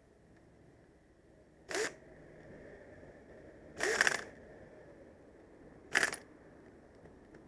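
Three short, sharp rushing sounds about two seconds apart from work on a truck's air-conditioning compressor, the middle one the loudest and longest.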